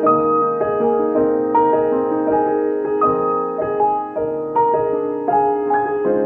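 Solo piano playing a gentle instrumental interlude of repeated broken chords, several notes a second. Near the end a final chord is struck and left to ring.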